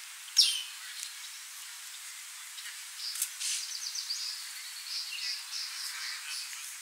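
Wild birds calling: one sharp, loud call sweeping downward in pitch about half a second in, then from about three seconds a run of short high notes repeated a few times a second.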